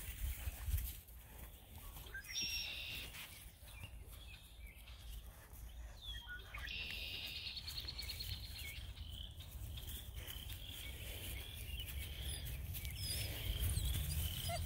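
Quiet outdoor ambience: a steady low rumble, two short high-pitched calls, and from about the middle on a regular series of short high chirps.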